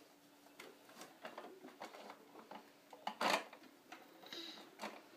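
Hard plastic clicks and knocks from a toy tow truck and toy car being handled, with one louder clatter about three seconds in.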